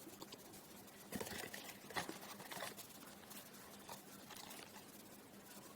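Faint handling sounds of small accessories and packaging being picked up: scattered light taps and rustles, the clearest about one and two seconds in.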